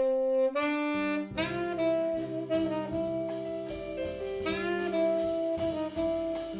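Jazz quartet playing, a saxophone carrying the melody; bass and drums come in about a second in.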